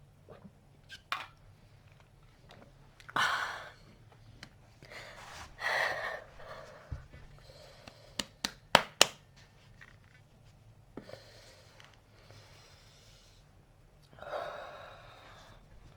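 A person hiccuping, with several short breathy gasps. A quick run of four sharp, sudden hics in the middle is the loudest part.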